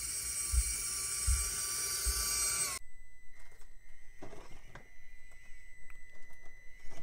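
Traxxas TRX-4M's PN Racing 63-turn high-speed 180 brushed motor and gearbox whining at speed, with a few low thumps. About three seconds in it cuts to the truck crawling slowly over rocks: a faint steady whine with tires scraping and clicking on the rock.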